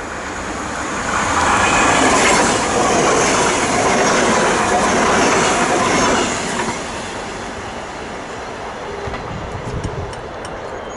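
NS double-deck electric passenger train passing close at speed: a loud rush of wheels on the rails that builds in the first second or so and drops off after about six and a half seconds, leaving the quieter run of a train further off.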